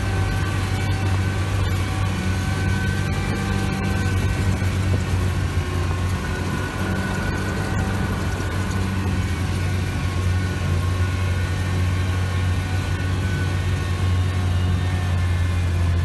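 Soviet UAZ off-road vehicle driving at low speed on a rough dirt track: a steady low engine drone with a steady higher whine above it.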